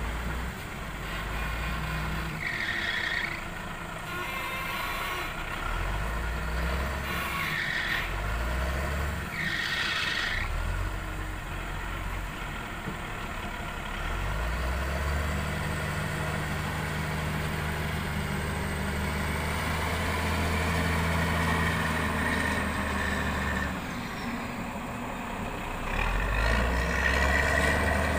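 Caterpillar wheel loader's diesel engine working a log grapple. It runs and revs, holds a steady higher speed from the middle of the stretch to just past three-quarters of the way through, and revs hard near the end, pouring black smoke. In the first ten seconds there are a few short, high squeals.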